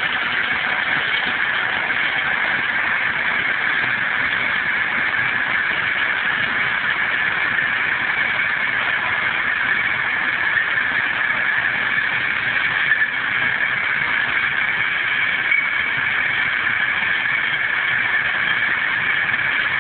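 Tractor engine and trailed Zmaj 224 corn picker running steadily while harvesting standing maize: an even, unbroken mechanical hum.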